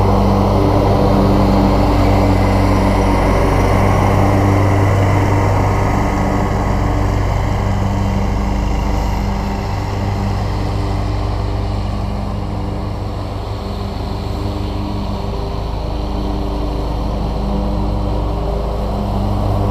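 Scag Cheetah zero-turn riding mower running steadily while cutting grass, a constant engine drone. It grows quieter around the middle as the mower moves away across the lawn, then louder again as it comes back.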